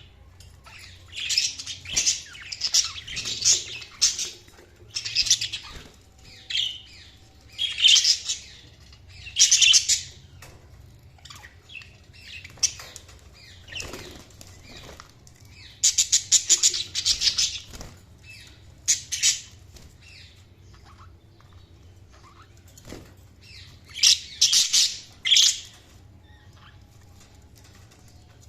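Budgerigars chirping and chattering in short, high, rapid bursts of about a second each, a dozen or so of them, with quieter stretches between and a longer lull a little past the middle.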